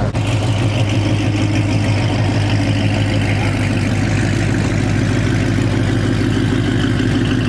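2012 Shelby GT500's supercharged 5.4-litre V8 idling steadily through newly fitted long tube headers and an off-road X-pipe; the idle sounds noticeably different, a lot better.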